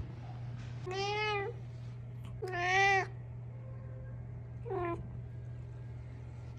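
A domestic cat meowing three times: two drawn-out meows about a second and a half apart, the second one the loudest, then a short meow about two seconds later. A steady low hum sits underneath.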